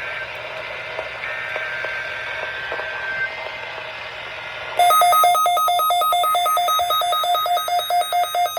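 Weather radio hiss, then about five seconds in a sudden, loud electronic alert beeping starts, pulsing rapidly several times a second: a weather radio receiver's alarm going off for the Required Weekly Test.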